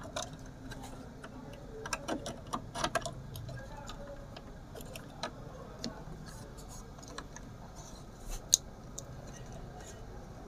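Scattered small clicks and taps as a printed circuit board and its wires are handled and fitted inside an amplifier chassis, with a cluster of clicks about two to three seconds in and one sharper click about eight seconds in.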